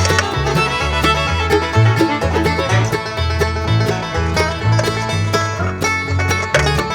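Background music: upbeat bluegrass-style tune with banjo, guitar and a steady bass line.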